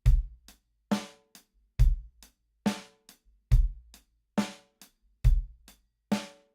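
Drum kit playing a slow, steady beat: bass drum and snare drum alternate about once a second, with light hi-hat ticks in between. The snare hits ring briefly.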